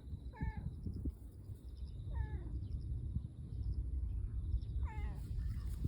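Tortoiseshell cat meowing three times, each a short mew that rises and falls in pitch, about two seconds apart, over a low rumbling noise.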